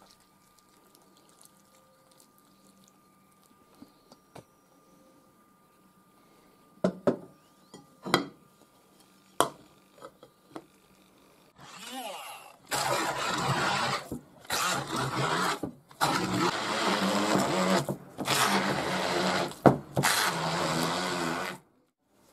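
Hand-held stick blender puréeing soaked dates in a glass bowl, run in several bursts of a few seconds each over the second half. Before that there are a few sharp knocks.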